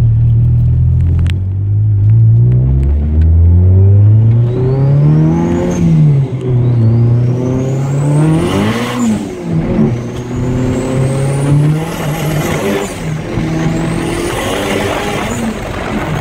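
BMW E30 318is's M42 1.8-litre four-cylinder engine heard from inside the cabin, pulling through the gears. The revs hold steady for a couple of seconds, then climb and drop back at each shift, about six, nine and thirteen seconds in, with a thin high whine rising along with each pull.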